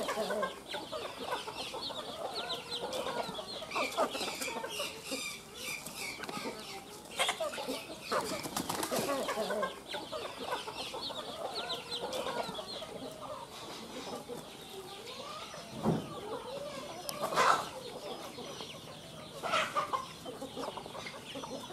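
A mixed flock of chickens feeding: hens clucking and chicks cheeping busily over one another, with a few short bursts of wing flapping.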